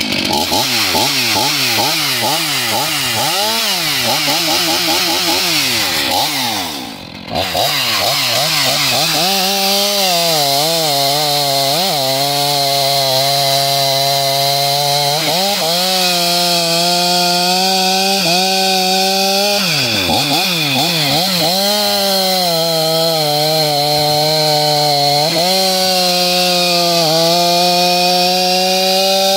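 Stihl MS 500i fuel-injected two-stroke chainsaw revved in quick repeated blips of the throttle, then held at high revs, its pitch sagging and recovering every few seconds as the 25-inch bar with semi-skip chain cuts wood.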